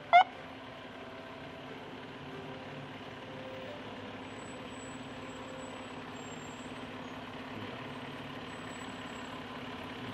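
A short, loud horn toot right at the start, then a vehicle engine running steadily at low speed.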